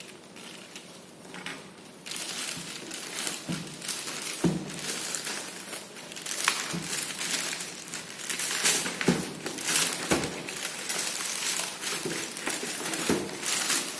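Plastic courier mailer bag crinkling and tearing as it is pulled open off a cardboard box. The rustling starts about two seconds in and keeps on with many sharp crackles.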